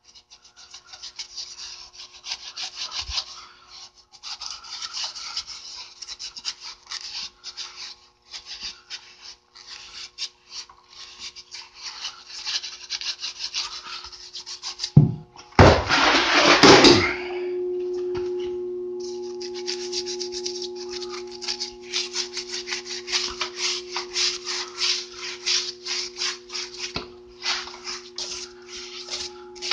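Scotch-Brite pad clamped to a battery-charger lead scrubbing a rusty steel truck frame wet with a vinegar and rock-salt slurry: repeated rubbing strokes as the charged pad wipes the rust off. About halfway through comes a loud rushing burst, and after it a steady low hum runs under the scrubbing.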